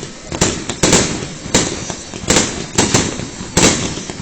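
Aerial firework shells bursting in a rapid finale barrage, about seven loud bangs in four seconds, each trailing off in an echo.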